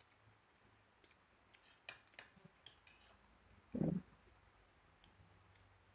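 Faint eating sounds: light clicks of metal spoons against plates and bowls, scattered around two seconds in, then one short dull thump just before four seconds in.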